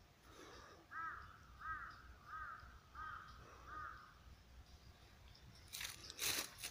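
A crow cawing five times in an even series, about one caw every 0.7 seconds. Near the end comes a run of sharp clicks and crunches.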